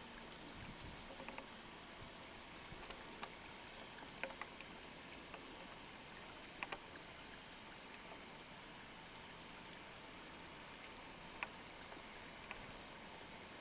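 Faint water sounds: a low steady hiss with scattered small drips and ticks, and a brief splash-like rush about a second in.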